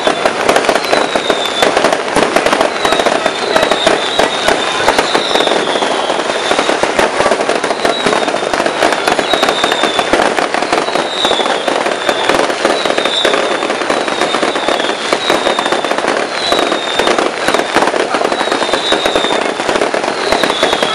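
Fireworks crackling and popping densely and without a break, with short high whistles that fall in pitch recurring every second or so.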